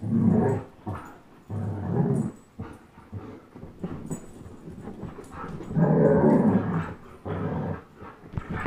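Play growling from a German Shepherd and an Old English Sheepdog tugging on a rope toy. The growls come in four bursts of up to about a second, the longest about six seconds in.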